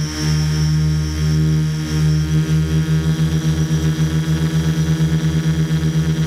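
Multirotor drone's motors and propellers humming in flight, recorded from the drone's own camera, with a steady low drone and a thin high whine. From about two seconds in the hum throbs in a fast, even beat, several pulses a second.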